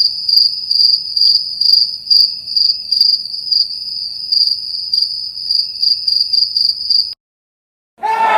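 Cricket chirping: a steady high-pitched trill with a pulsing rhythm, which stops abruptly about seven seconds in. After a brief silence, a crowd starts cheering right at the end.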